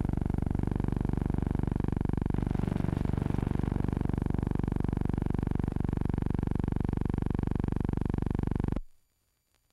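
Vultee V1-A monoplane's single radial piston engine running steadily at power with a rapid pulsing drone, then cutting off suddenly near the end.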